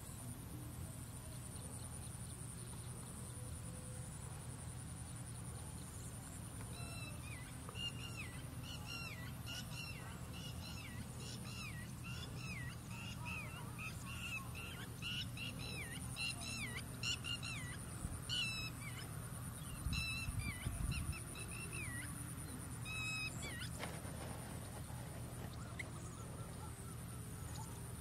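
Birds calling in a long run of short notes, each sliding downward in pitch, starting about a quarter of the way in and stopping a few seconds before the end, over a steady high-pitched hiss.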